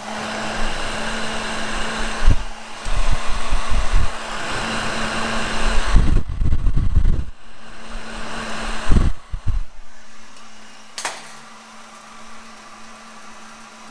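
Heat gun blowing hot air onto a rubber power steering hose to soften it so a stiff barbed fitting can be pushed in. The steady blowing is broken by several loud low thuds in the middle and stops about ten seconds in, followed by a single sharp click.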